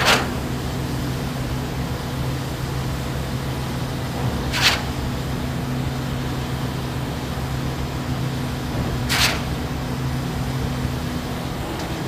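Truck-mounted concrete pump running during a pour: a steady engine drone with a short, sharp hiss three times, about every four and a half seconds, in time with the pump's stroke cycle. The low hum drops away about a second before the end.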